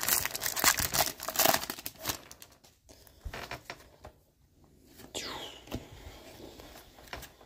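The silver wrapper of a 2022 Topps Series One baseball card hobby pack being torn open and crinkled, loud and crackly for the first couple of seconds, then giving way to quieter rustles and clicks.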